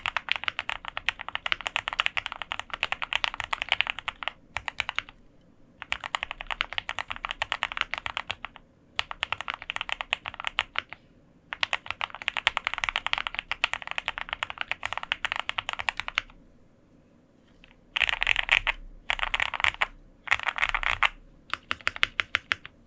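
Fast typing on a QK65 custom mechanical keyboard with lubed Gateron Ink Black linear switches, GMK keycaps and an aluminium plate: dense runs of key strokes lasting a few seconds each, broken by short pauses. Near the end come a few shorter, louder flurries of keystrokes.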